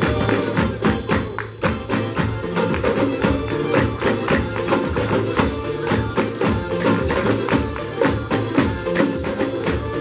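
Adyghe (Circassian) folk dance music at a fast, even beat, with tambourines and other small hand percussion of a children's percussion band shaken and struck along with it.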